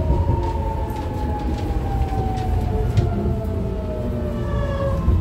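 BART Legacy Fleet railcar's propulsion whine falling steadily in pitch as the train slows, over the low rumble of wheels on the track, with a few faint clicks.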